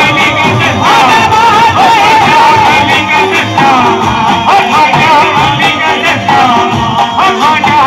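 Live qawwali music, loud through loudspeakers: a wavering, ornamented melody line with singing over a regular drum rhythm.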